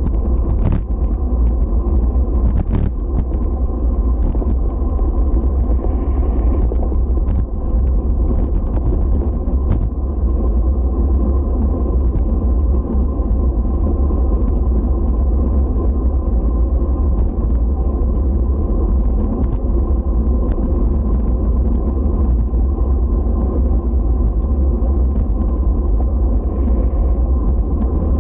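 Steady low rumble of travel over pavement, with a few brief clicks in the first ten seconds or so.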